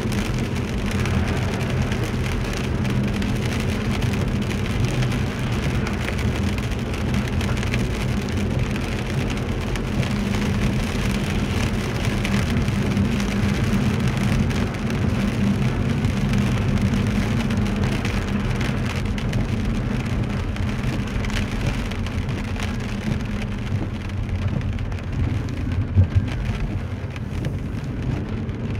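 Inside a car driving on a rain-soaked road: a steady hiss of tyres on wet tarmac and rain on the windscreen over a low engine and road hum. The hiss thins near the end, and a single short knock comes shortly before the end.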